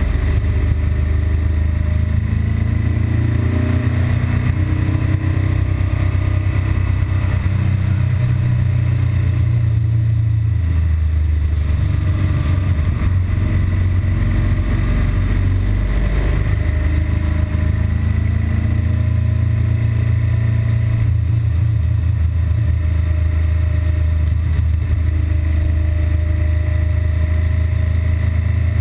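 BMW R1200GS Adventure's flat-twin boxer engine running steadily while riding along. Its note shifts briefly about ten seconds in and again around sixteen seconds. The engine is still running normally, before its intermittent stalling fault sets in.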